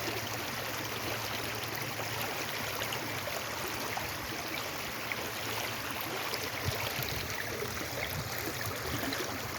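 Fast-running floodwater stream rushing and gurgling in a steady, even wash.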